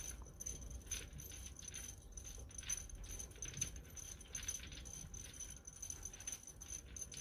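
Glass drops of a swaying crystal chandelier clinking and tinkling together in quick, irregular light clicks, set in motion by earthquake shaking.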